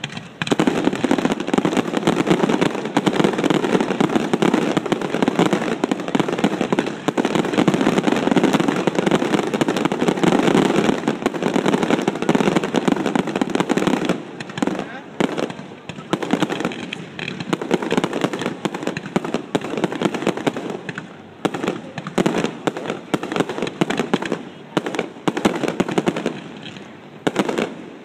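Fireworks display: a dense barrage of rapid bangs and crackling for about the first half, thinning to more scattered bursts with short gaps after that.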